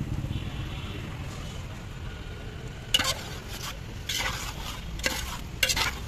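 A metal fork stirring thick chicken and tomato-paste masala in a large metal pot, over a low steady frying sizzle. About halfway through come about five short scrapes of the fork against the pot.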